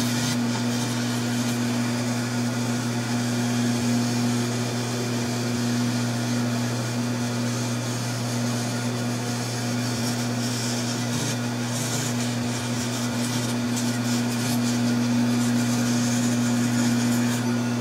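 Taig CNC mill's spindle running steadily while a 1/8-inch end mill engraves pink foam: a constant low hum with an even hiss of cutting over it.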